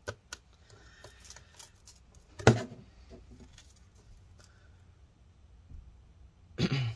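Laptop handling: a couple of small clicks right at the start as the battery connector is worked loose on the open MacBook Pro, then one loud knock about two and a half seconds in as the laptop is turned over and set down on the table, with light rustling between.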